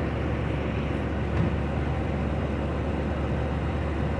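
1977 Chevrolet Corvette's small-block V8 idling steadily while warming up after a cold start.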